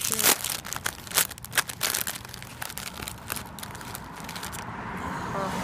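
Foil-lined Doritos chip bag crinkling as hands pull it open and handle it: a quick run of sharp crackles, easing into softer rustling near the end.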